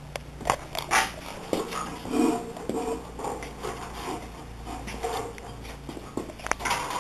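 Scattered clicks, taps and light metallic rattling from wire hardware cloth and a staple gun being handled and positioned on the wooden hive body, with a couple of louder knocks about one and two seconds in.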